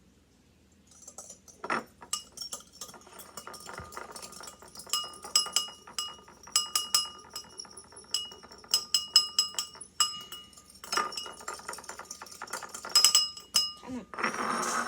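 A small metal fork stirring in a bowl, clinking against its side in quick irregular runs of ringing clinks, starting about a second in.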